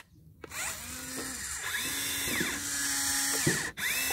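Small electric motors of an RC Volvo excavator whining as the boom and bucket move, the pitch rising and falling as each motion starts and stops. It starts just after a short silence and cuts out briefly near the end before another whine.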